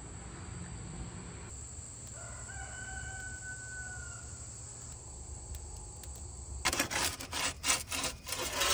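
A rooster crows once, one long call about two seconds in. Near the end, music with a strummed plucked-string instrument comes in and is the loudest sound.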